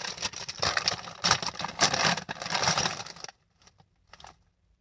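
Crinkly plastic chip bag rustling and crackling as it is handled and lifted, dense for about three seconds, then a few faint clicks.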